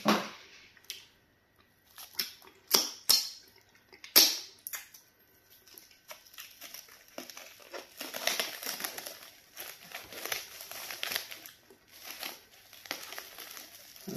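A few sharp clicks in the first four seconds, then a long stretch of crinkling as clear plastic wrap is pulled and peeled off a ball of pounded-yam fufu.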